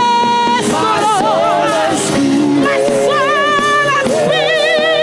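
Live gospel worship music: a singer holds long notes with vibrato over instrumental accompaniment, starting a new phrase every second or two.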